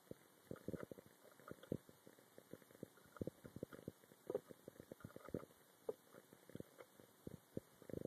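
Water boiling under vacuum in a plastic cup: bubbles forming and bursting as irregular low, dull thumps and gurgles, three or four a second at uneven spacing.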